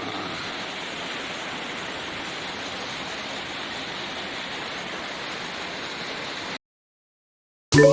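Heavy rain falling in a steady hiss that cuts off abruptly about six and a half seconds in. After a second of silence, marimba music begins at the very end.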